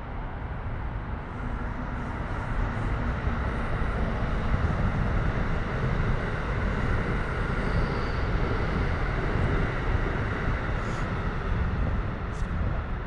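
Steady rumbling rush of passing vehicle traffic, swelling over the first few seconds and then holding.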